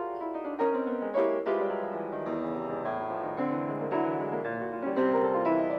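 Grand piano played solo: a flowing stream of single notes and chords in a slow classical style.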